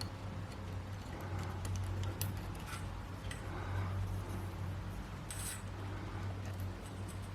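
Scattered light clicks and rubbing from hand work on the machine, over a steady low hum.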